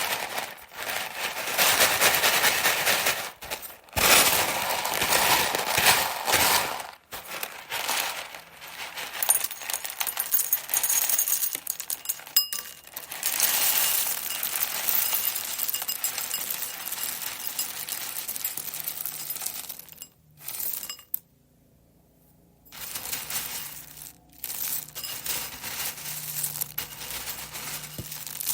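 Dry textured vegetable protein (TVP) pieces being handled and shuffled, a crisp rattling and crinkling that comes in irregular bursts with short pauses, and one longer break about three-quarters of the way through.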